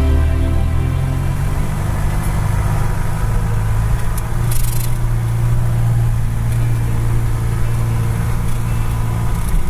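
A vehicle's engine running steadily at low speed, heard from inside the cab while driving on a rough dirt road.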